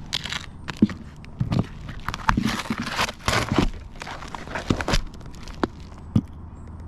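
Scuffing, crinkling and light knocking of someone moving about and handling things on a stripped roof deck: a dense run of short scuffs for about five seconds, then a few sharp clicks near the end.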